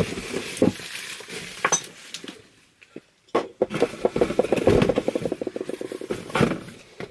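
Rustling and light clinking as items and packaging are sorted through by hand. After a brief quiet moment there is a quick, dense run of clicks and rustles lasting about three seconds.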